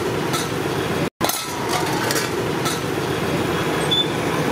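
Steady rumble of roadside traffic, with a few faint clicks.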